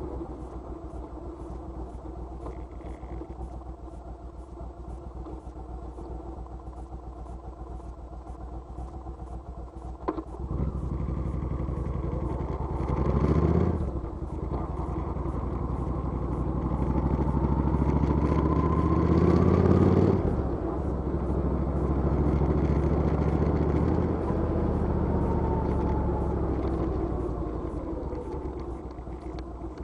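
Motorcycle engine running steadily. After a sharp click about a third of the way in it gets louder, and it is revved up and down twice, at about the middle and about two-thirds through, before settling back to a steady run.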